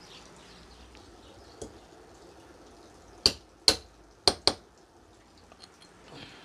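Hammer striking a metal tube used as a drift, driving a size 6000 ball bearing into place on an electric planer's shaft: four sharp metallic blows with a short ring, in quick succession over just over a second, about halfway through.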